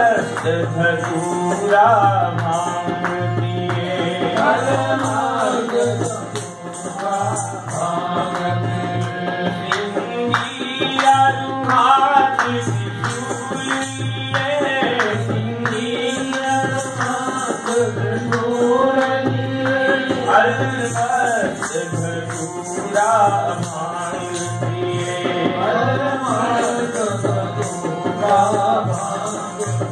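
A man singing to his own harmonium, its reeds holding chords under the wavering vocal line, with a regular low beat beneath.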